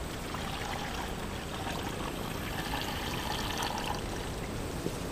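Syrup bee feed poured steadily from a plastic pitcher into a division board feeder inside a hive box, a liquid splashing and trickling that eases off near the end.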